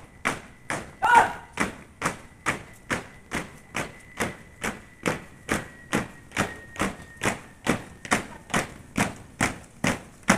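A squad marching in step on pavement, their shoes striking together in unison about twice a second in a steady cadence.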